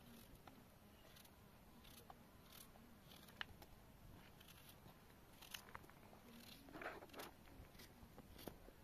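Near silence: faint room tone with scattered small clicks and a short rustle about seven seconds in.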